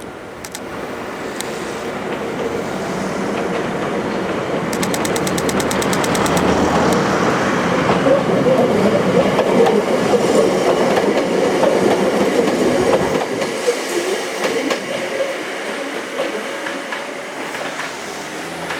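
Hakone Tozan Railway 2000-series electric train passing: a steady running rumble that grows louder to a peak about halfway, then fades. A rapid run of high ticks comes about five seconds in.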